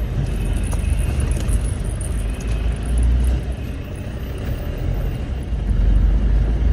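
Steady low rumble of engine and tyre noise from inside a moving car driving on a paved road.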